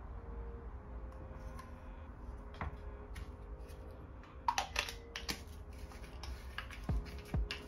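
Light clicks and taps from handling small containers and tools while mixing two-part adhesive, with a quick cluster of them about halfway through, over a low steady hum.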